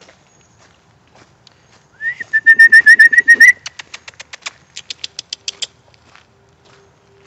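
A bird calling loudly: a quick run of about a dozen high, even notes, then two short bursts of dry clicking rattle.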